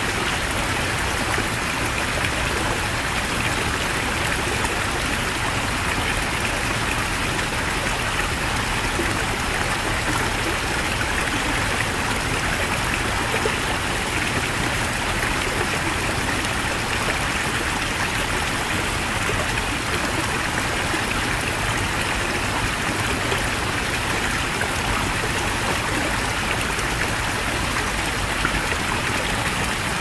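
Heavy mountain stream flowing in a steady, unbroken rush of water.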